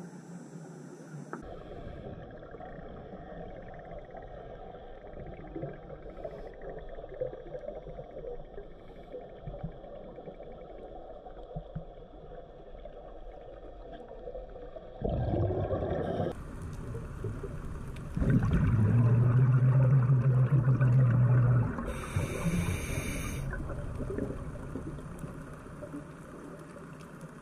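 Underwater sound picked up by a diver's camera, with scuba regulator breathing: a long, loud, low buzzing exhalation of bubbles about two-thirds of the way in, followed by a short hiss of inhalation.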